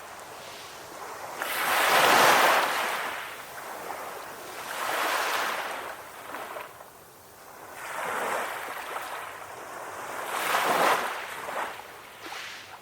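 Sea waves breaking and washing on a shore: a hiss of surf that swells and fades, with a series of surges, the loudest about two seconds in and others around five, eight and eleven seconds.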